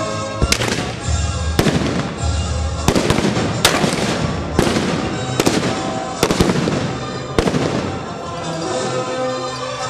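Gunshots cracking one after another, about nine over the first seven and a half seconds, over background music that carries on after the last shot.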